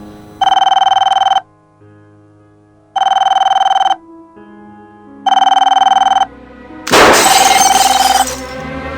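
Telephone ringing: a steady electronic ring tone about a second long, repeated four times a couple of seconds apart, over quiet background music. Just before the fourth ring comes a short, loud, noisy rush.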